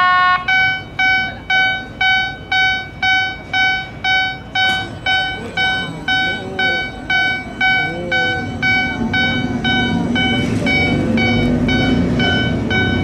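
Rail depot traverser (transfer table) sounding its travel warning buzzer, a high pitched beep about twice a second that runs together into a continuous tone about two-thirds of the way in. A low steady drive hum rises under it from about the same point as the traverser moves.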